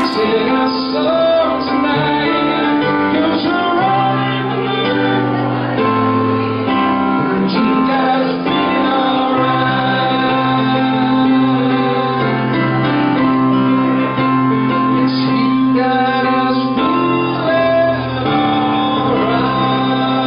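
Music: sustained keyboard chords under a melody line.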